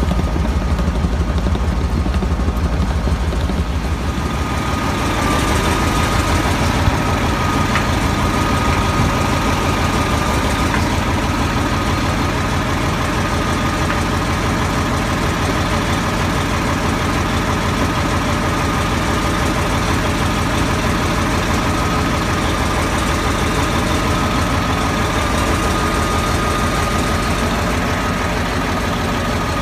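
The engine of a Morbark 1300A tub grinder running steadily. A thin, steady high whine joins in about five seconds in.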